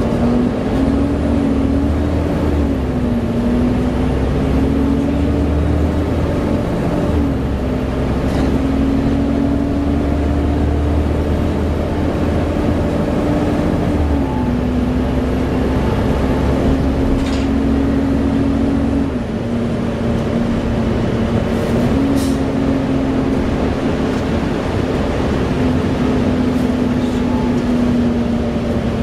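Volvo B7TL bus running at motorway speed with its loud 'hoover' cooling fan, the engine note holding steady, then stepping up or down in pitch about half a dozen times. A faint high whine sits above it.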